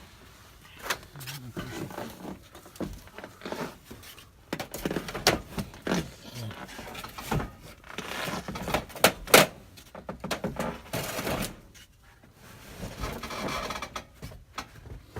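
Irregular knocks, scrapes and creaks of people climbing up into an attic and moving over wooden boards, with a few sharper knocks about nine seconds in.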